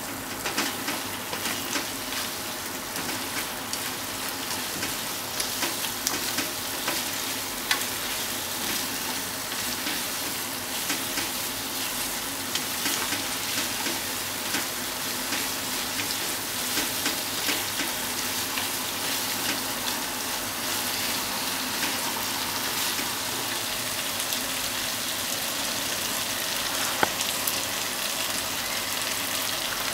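Beef and onion slices in ketchup sizzling in a nonstick frying pan, stirred and tossed with wooden chopsticks that click and scrape against the pan, with one louder tap near the end.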